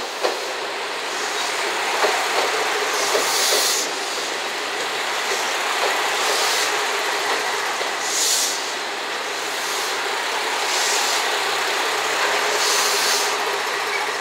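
JR Shikoku 2700 series three-car diesel multiple unit rolling slowly past, its diesel engines and wheels on the rails running steadily. There are a few sharp rail-joint clacks in the first couple of seconds and short high hissing squeals every two to three seconds.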